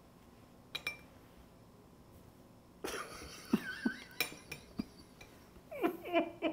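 Light clinks and knocks of kitchenware being handled on a countertop: a couple of clicks about a second in, then busier clattering from about three seconds on. A man and a woman laugh quietly near the end.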